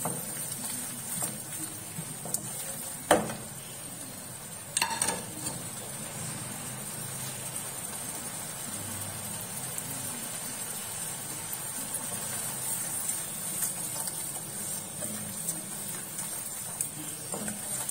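Ground onion, green chilli and ginger-garlic paste sizzling in hot oil in a nonstick kadai while a wooden spatula stirs it. Two sharp knocks come about three and five seconds in.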